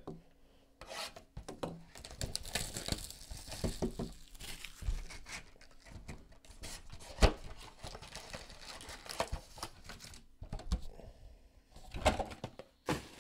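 Plastic wrap being torn off a trading-card hobby box and crinkled, then the cardboard box handled and opened and its foil card packs taken out, with scattered clicks and a sharp knock about seven seconds in.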